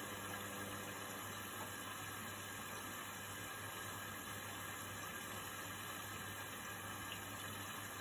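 Indesit front-loading washing machine running: a steady low hum under an even hiss, with no change in level.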